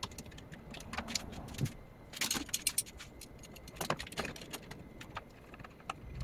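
Metal hand tools clinking and tapping in a car's engine bay, in scattered clusters of sharp clicks, as a wrench and sockets are used to take parts off.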